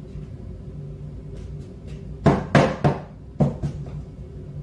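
Kitchen knife chopping through hard raw butternut squash onto a plastic cutting board: about five sharp knocks in quick succession about two seconds in. The squash is hard to cut.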